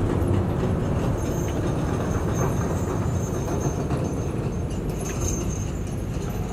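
Diesel engine of a 5-ton dump truck running steadily under load as its hydraulic hoist raises the loaded bed to tip out dirt.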